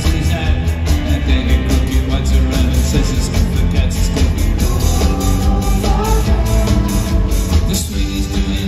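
Live rock band playing an instrumental passage between sung lines: drums, bass, electric guitars and keyboards.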